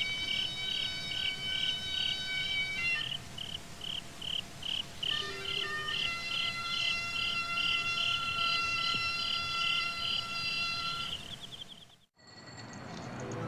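Insects chirping in a regular pulse, about three chirps a second, over a steady high drone. The sound cuts off abruptly about twelve seconds in, and music with held tones begins.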